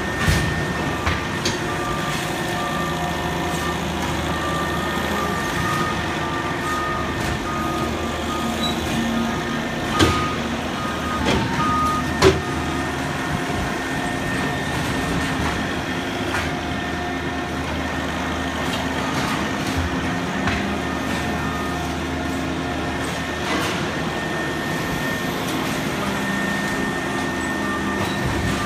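Forklift with a bale clamp running and manoeuvring, its reversing alarm beeping in spells over a steady engine hum and a constant high whine. A few sharp knocks stand out about a third of the way through.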